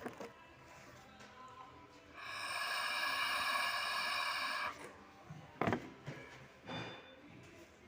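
A steady hiss starting about two seconds in and lasting about two and a half seconds, followed by a sharp knock.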